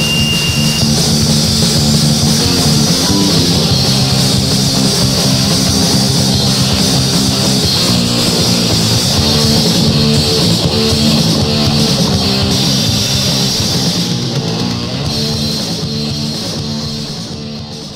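Instrumental stretch of 1980s New York punk/metal: distorted electric guitars over bass and drums, fading out over the last few seconds.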